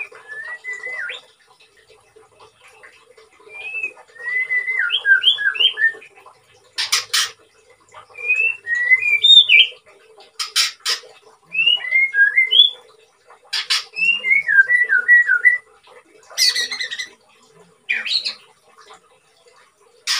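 White-rumped shama (murai batu) singing through its moult: short whistled phrases of quick rising and falling notes, broken every couple of seconds by loud harsh rasping notes.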